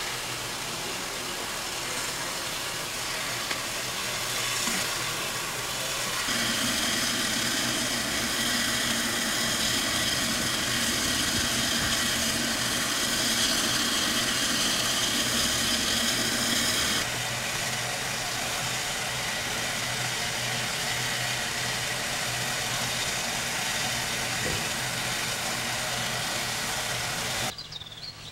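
Alco Tipo 70 steam locomotive working, a steady hiss and rumble of steam with no distinct exhaust beats. The sound grows louder and brighter about six seconds in, steadies again about seventeen seconds in, and drops much quieter near the end.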